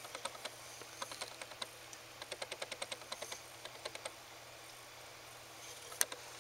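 Quick small clicks in short runs, several a second, with a sharper knock near the end.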